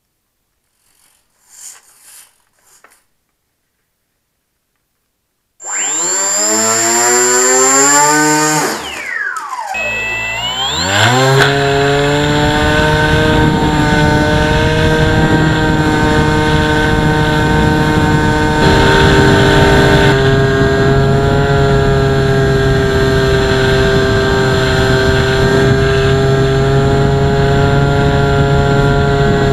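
Electric brushless motor and propeller of a Hobbyking Drifter RC foam flying boat, heard from a camera on board: the whine climbs quickly in pitch as the throttle opens about six seconds in, drops away briefly, climbs again and then holds steady in flight with small shifts in pitch.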